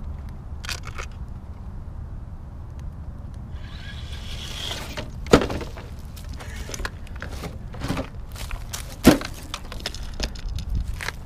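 Traxxas TRX-4 Sport RC crawler trailing over rough ground: scattered knocks and scrapes, with two sharp knocks about five and nine seconds in, over a steady low rumble. A brief hiss comes just before the first loud knock.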